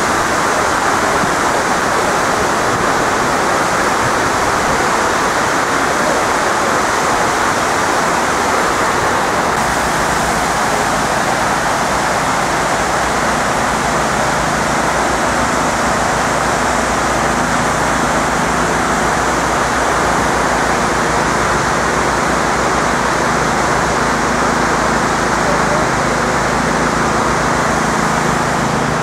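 Water pouring down into a 9/11 Memorial reflecting pool: a loud, steady rush. From about ten seconds in, a low engine hum joins it.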